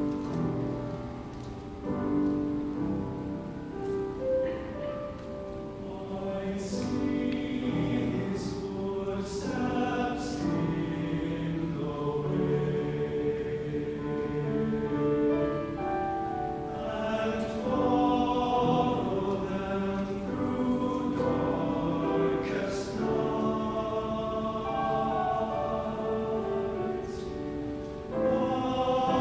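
Mixed choir singing a slow choral piece in several parts, the voices holding long notes, with a few sharp 's' sounds cutting through now and then.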